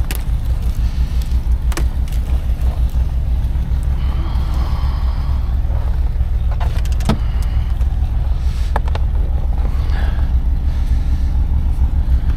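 Steady low engine rumble from vehicles setting up for ice drag racing, with a few sharp clicks and knocks scattered through it.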